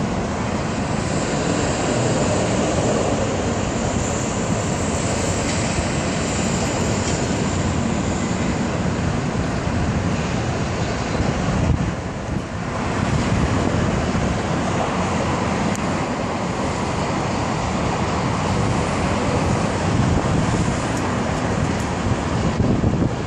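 Steady road traffic noise with wind on the microphone. About twenty seconds in, a car can be heard accelerating: a first-generation Jeep Grand Cherokee SRT-8 with its 6.1-litre Hemi V8.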